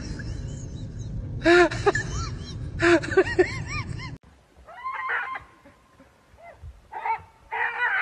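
Beagle giving a run of short, arching yelps with a low rumble under them, loudest in two clusters near the middle. They stop suddenly about four seconds in, and quieter, higher-pitched whining from a dog follows.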